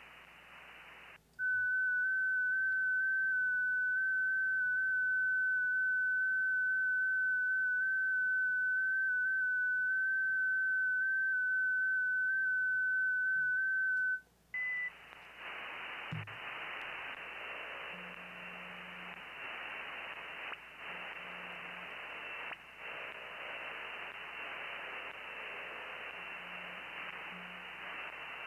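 FT8 transmission audio from a ham radio: a single steady high tone that steps slightly up and down in pitch. It starts about a second in and lasts about 13 seconds, one full FT8 transmit period. The station then switches back to receive, and the radio's hiss returns with faint short tones in it.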